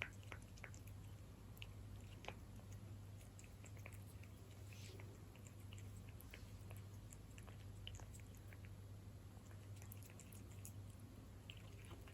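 A cat chewing wet cat food in jelly: faint, irregular wet smacks and clicks, over a low steady hum.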